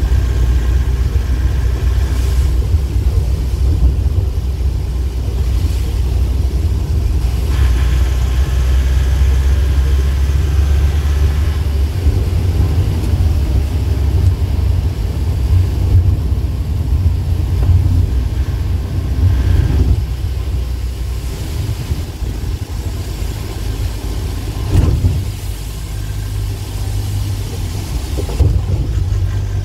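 Steady low engine and road rumble heard from inside a moving vehicle's cabin, with two short knocks near the end.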